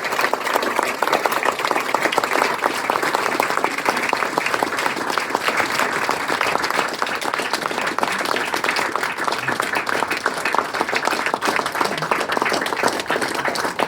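Audience applauding steadily: many people clapping together at the close of a poetry reading.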